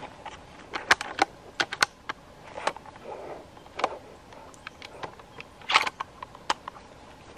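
Irregular sharp snaps and crackles of dry sticks and leaf litter, with a brief softer rustle midway, as a feral pig roots and walks through the undergrowth.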